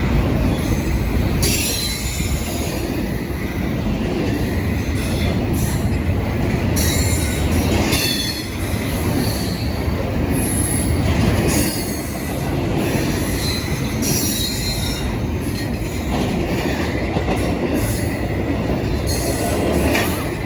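Norfolk Southern freight cars rolling past: a steady low rumble of wheels on rail, with repeated high-pitched wheel squeals coming and going every few seconds.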